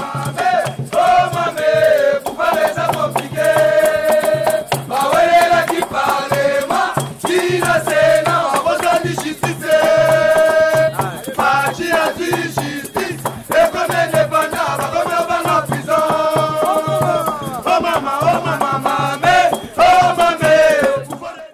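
Upbeat song: a lead voice singing held, wavering notes over fast, dense shaker-like percussion and a repeating bass line.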